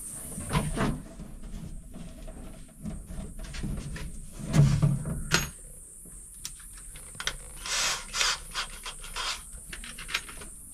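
A large plywood sheet being shifted and rubbed against the van's wooden framing as it is raised into place for the ceiling, with a heavy wooden thud about four and a half seconds in and scattered knocks, clicks and rustles.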